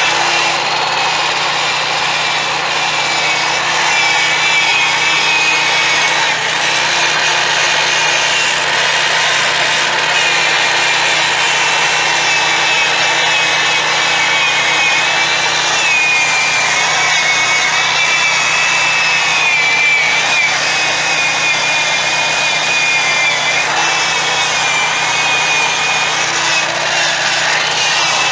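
Electric drill spinning a foam polishing pad with cut polish against a plastic headlight lens. It runs continuously, with a steady motor whine that wavers a little in pitch as the pressure on the pad changes.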